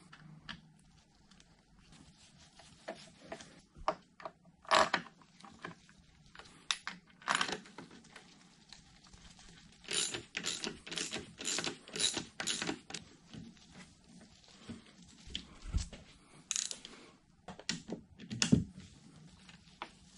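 Metal hand tools and steel bolts clinking and clicking against an electric motor's end bell as it is worked on, with a quick run of clicks from about ten to thirteen seconds in and two louder knocks, one about five seconds in and one near the end.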